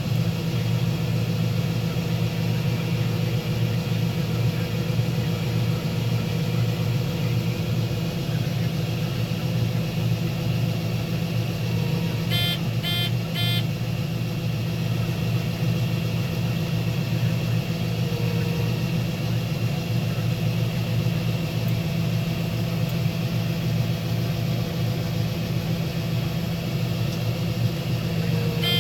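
Combine harvester running steadily while shelling corn, a constant low engine and machinery drone. About twelve seconds in, three short electronic beeps sound over it.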